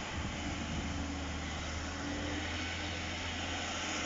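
Class 156 Super Sprinter diesel multiple unit's underfloor Cummins diesel engines running under power as the train pulls out, a steady low drone.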